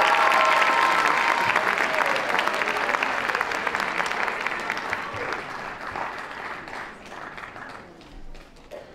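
Audience clapping that gradually fades away, with the last held notes of the music dying out in the first second or so.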